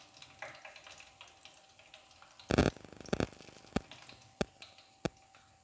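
Hot frying oil faintly crackling and sizzling around a fried chicken drumstick. About two and a half seconds in comes one loud knock, then a handful of short, sharp clicks at uneven spacing.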